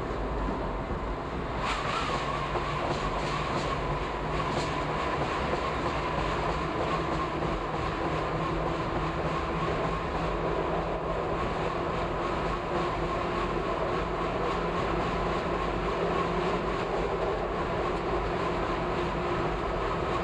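Toronto subway train running on the rails, a steady rumble with a steady whine, growing louder about two seconds in as it enters the tunnel. A run of clicks from the wheels crossing track joints follows for a few seconds.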